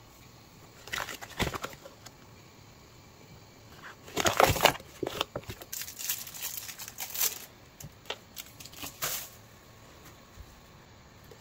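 Packaging crinkling and rustling as it is handled, in irregular bursts, loudest about four to five seconds in.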